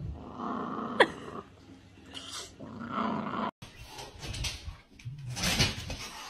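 Siberian husky growling and grumbling, with one sharp falling squeal about a second in. The sound drops out abruptly, then a burst of hissing noise follows near the end.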